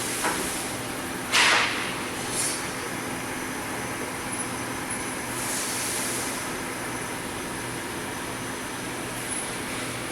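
Correa FP-50/60 CNC bridge milling machine running with a steady mechanical hum. A short, sharp hiss comes about a second and a half in, a smaller one a second later, and a softer hiss around six seconds.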